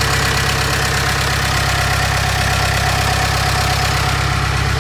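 Old Komatsu bulldozer's diesel engine running steadily at idle with an even, purring beat, running again after a makeshift repair.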